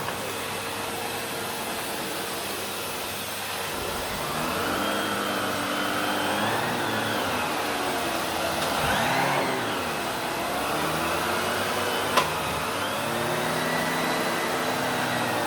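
Vacuum cleaner running, its motor whine wavering up and down in pitch, with a single sharp click about twelve seconds in.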